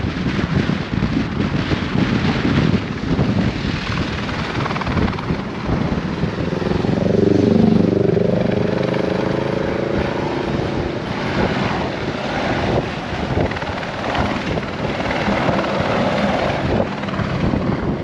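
Helicopter flying low, its rotor and engine heard over the road noise of a moving car. About seven seconds in, a louder pitched drone dips and rises in pitch.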